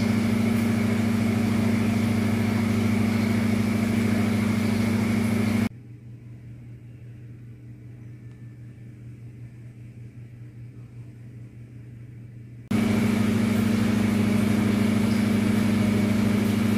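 Steady low machine hum, like a small motor or fan running. It drops suddenly to a much fainter hum about six seconds in and comes back just as suddenly near the thirteenth second.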